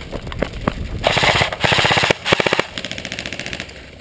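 Airsoft rifles firing rapid full-auto bursts, a fast train of sharp clacks with more than one gun going at once. The fire is loudest for the first two and a half seconds, then fainter rapid ticking carries on.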